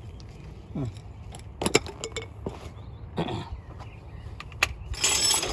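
Hand tools and a socket wrench clinking and knocking against metal while working on the hub bolts: scattered sharp metallic clicks and knocks, with a brief noisy burst near the end.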